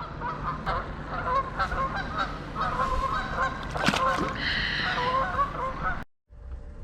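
A flock of geese honking, many short calls overlapping, with one sharp click near the middle; the sound cuts off abruptly about six seconds in.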